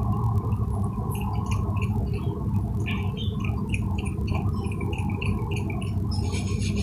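Raccoon lapping water from a glass mug with its tongue: quick, wet little laps about four a second, over a steady low background noise.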